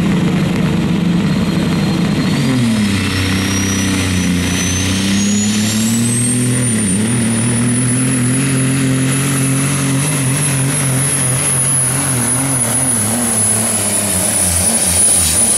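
Diesel semi truck's engine running at full load while pulling a weight sled down a pull track, its note dropping about two seconds in as the load comes on and then holding steady. A turbocharger whine rises in pitch over the next several seconds and then stays high.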